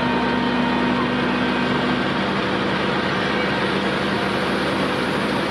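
Diesel engine of an Iveco Magirus turntable ladder truck running steadily to power the raised ladder, with a dense hum that steps down a little in pitch about two seconds in.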